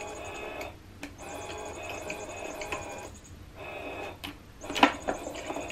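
Catty Whack electronic cat toy running, its motor whirring with its built-in sound, cutting out briefly about three times. A sharp knock near the end is the loudest sound.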